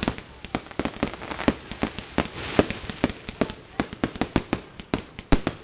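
Fireworks going off: a rapid, irregular string of sharp bangs and cracks, several a second.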